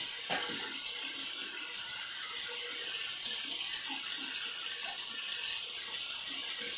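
Water tap running steadily into a bathroom sink, an even hiss.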